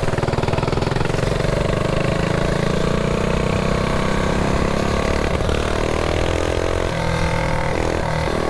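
Mini bike engine running steadily as the bike is ridden, its pitch slowly easing down, with a brief drop in revs about seven seconds in.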